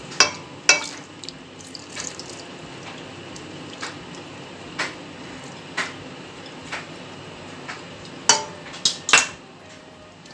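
Fresh green peas poured from a bowl into a stainless steel pot of broth, splashing and dripping into the liquid, over a steady hiss. A scattering of sharp clinks runs through it, the loudest bunched together near the end.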